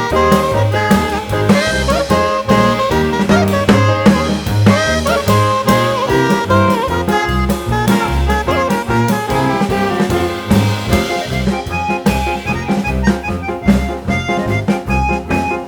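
Background jazz music: a swing-style tune with horns, a walking bass line and a steady drum beat.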